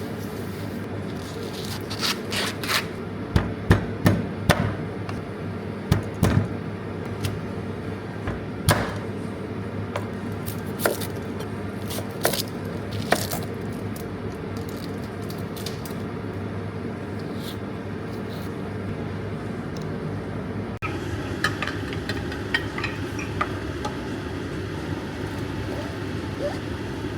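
Irregular knocks and taps, bunched in the first half, over a steady low hum.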